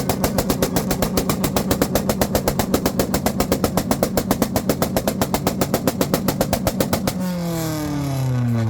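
Honda CRX engine held on a two-step launch-control rev limiter, its exhaust popping in a rapid, even stutter. About seven seconds in the popping stops and the revs fall away.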